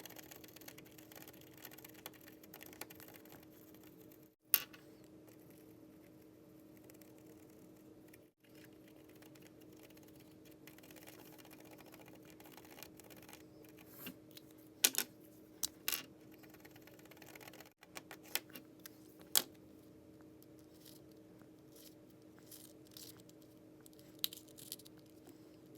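Scattered sharp plastic clicks and clacks of a 3x3 Rubik's cube being turned, single clicks and short clusters with long gaps between, over a steady low hum.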